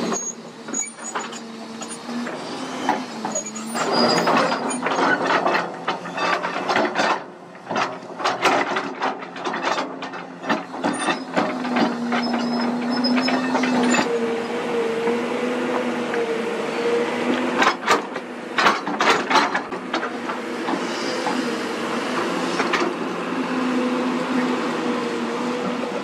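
Kobelco SK200 crawler excavator's diesel engine running with a steady drone, rising briefly in pitch about halfway through. Frequent metallic clanks and rattles sound over it.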